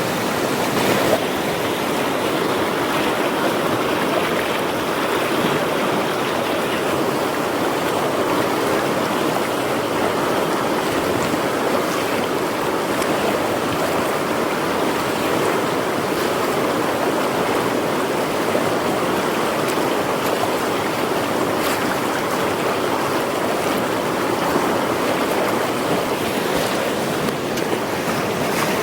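River water flowing steadily, a continuous rushing with no break or change in level.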